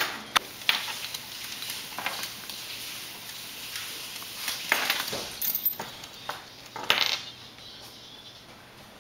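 Household cleaning in a kitchen: scattered, irregular clinks and knocks of kitchenware being handled. The loudest clatter comes about seven seconds in.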